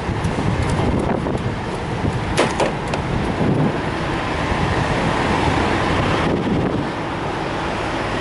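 Steady running noise of idling diesel trucks at a fuel island, with a light sharp click about two and a half seconds in.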